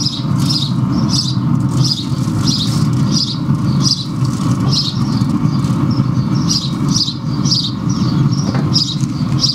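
Wind rushing against the microphone in a steady, uneven rush, with a small bird chirping over it about twice a second.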